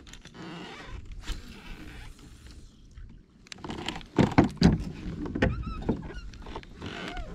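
Knocks and thumps of rod and gear being handled against the plastic hull of a fishing kayak, with rustling as the angler shifts about. The knocks are loudest about four to five seconds in.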